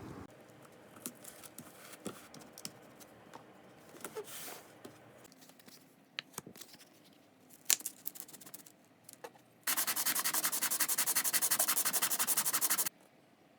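Hand work on metal: small clicks, knocks and rubbing, then about ten seconds in a loud, fast, even rasping that lasts about three seconds and stops abruptly.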